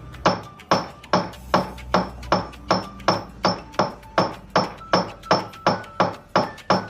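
Steady hammer blows on metal, about two to three a second, each strike ringing briefly with a metallic tone.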